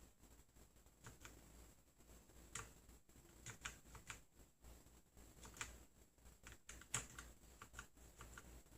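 Faint, irregular clicking of computer keyboard keys being pressed, a few clicks at a time with short pauses between.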